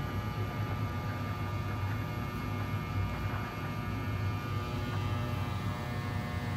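NJ Transit ALP-46 electric locomotive giving off a steady electric hum of several fixed tones over a low rumble as it approaches and passes.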